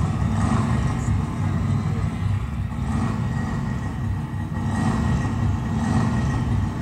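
Large concert crowd making a steady noise between songs, over a heavy low rumble, with no music playing yet.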